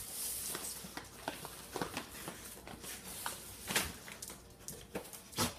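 A dog's claws clicking and scuffing irregularly on a tile floor as it moves around.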